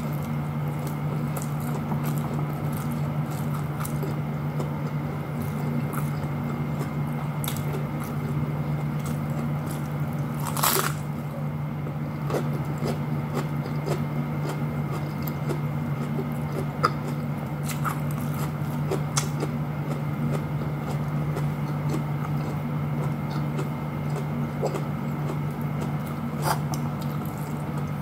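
Close mouth sounds of eating: crunchy chewing of fresh Chinese cabbage leaf wrapped around rice, with scattered small clicks and one louder crunch about ten seconds in, over a steady low hum.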